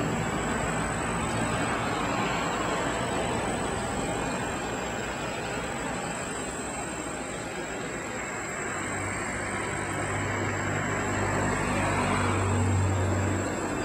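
Steady rushing noise with a low motor-vehicle engine hum that swells from about nine seconds in and is loudest near the end, with a faint thin high whine alongside.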